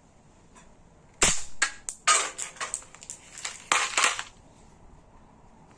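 Rapid series of sharp plastic clicks and snaps, about a dozen over three seconds, from a 3D-printed Tic Tac candy gun's mechanism being worked.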